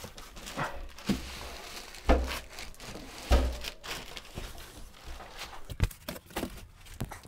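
Plastic bag and foam packing rustling and crinkling as a heavy welding machine is handled out of its box. There are two dull thumps about two and three and a half seconds in, then a few light knocks.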